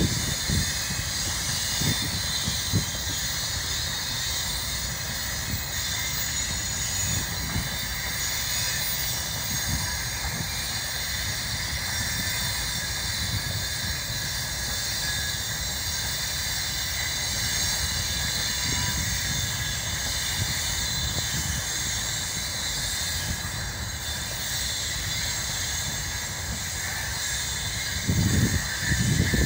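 Freight train of open gondola wagons rolling past steadily: a constant rumble of wheels on the rails with a high hiss above it. Louder low thumps come in near the end.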